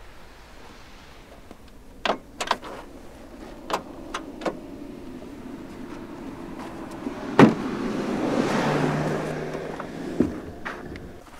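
Several sharp clicks of switches or trim being handled in a 2022 Hyundai Elantra, then a small electric motor runs with a steady hum for a few seconds and stops with a click. A single loud click about seven seconds in is the loudest sound.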